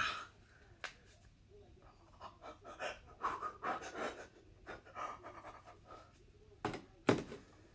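A person breathing heavily in excitement while rubbing their hands together, with soft rustles. Near the end come two sharp knocks.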